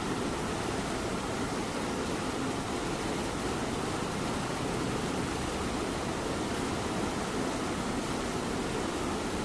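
Domestic cat purring steadily over light rain falling outside, together an even, unbroken hiss.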